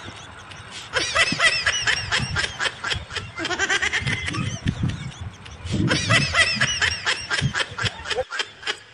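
High-pitched giggling laughter in three bouts, each a quick run of rapid ha-ha pulses.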